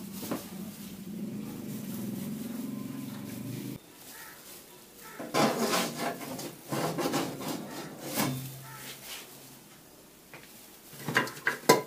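Kitchen handling noise: a steel pan and utensils rubbed and scraped on a metal stovetop, in irregular bursts, with a few sharp metal clicks and a clatter near the end. A steady low hum runs under the first few seconds and cuts off abruptly.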